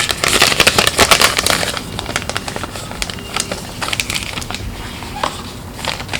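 Thin plastic protective cover being peeled and crinkled off a new smartphone: a dense run of crackles, loudest in the first couple of seconds.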